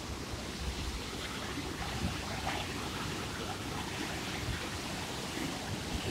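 Fast glacial mountain stream rushing and churning over boulders: a steady, unbroken wash of white water, the sign of a strong, high flow.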